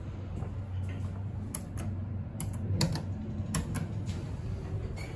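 Scenic elevator car: about seven short, sharp clicks at uneven spacing, over a steady low hum.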